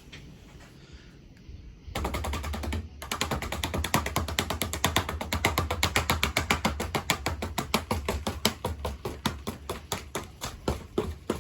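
Commander ceiling fan spinning down: a rapid, even clicking over a low hum starts suddenly about two seconds in, and the clicks grow sparser towards the end as the fan slows.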